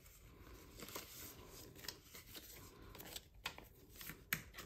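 Australian polymer banknotes being handled and tucked into a plastic binder envelope and a cash organiser: faint rustling, with a few short crisp clicks in the second half.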